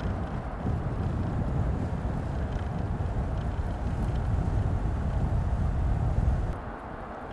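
Mercedes-Benz C250 estate (W205) driving at speed: a steady low rumble of engine and tyre noise mixed with wind on the microphone, dropping in level about six and a half seconds in.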